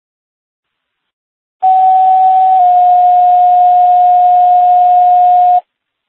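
Two-tone sequential paging tone received on a radio scanner: a steady high tone for about a second, then a slightly lower steady tone for about three seconds, which cuts off suddenly. It is a dispatch tone-out alerting the units about to be sent to a call.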